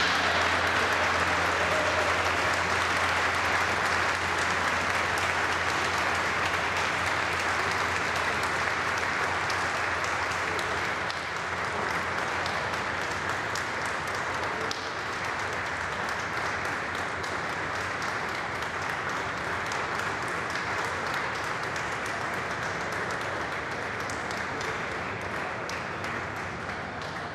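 A crowd applauding: sustained, dense clapping that slowly tapers off toward the end.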